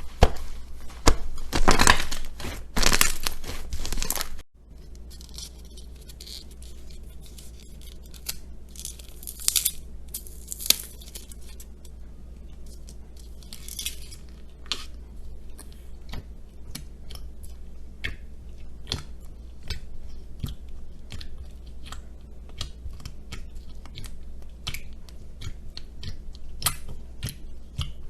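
Slime being handled by hand for ASMR: dense crackling and crunching for about four seconds, then after an abrupt cut, quieter scattered clicks and pops with a few short sticky hisses.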